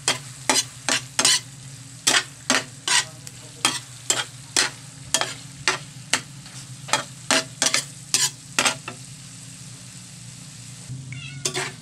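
Metal spatula scraping and knocking against a wok as fish cooked paksiw-style is stirred in its vinegar and soy sauce, with a faint sizzle underneath. The sharp strikes come irregularly, two or three a second, and stop about nine seconds in.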